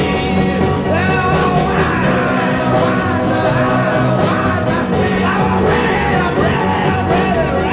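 Full-band song playing an instrumental stretch near its end: a steady drum beat under held chords, with a wavering melody line bending up and down on top.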